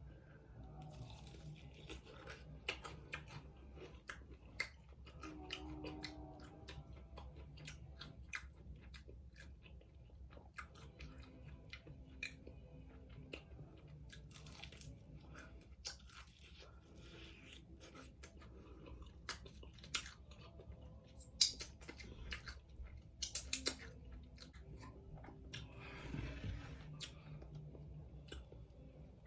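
Close-up eating sounds: a person chewing and biting into fried chicken wings, with irregular small crunches and wet mouth clicks.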